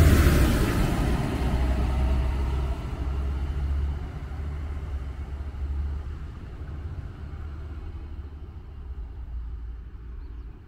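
DB Class 643 (Bombardier Talent) diesel multiple unit pulling away, its low diesel rumble fading steadily as it draws off into the distance.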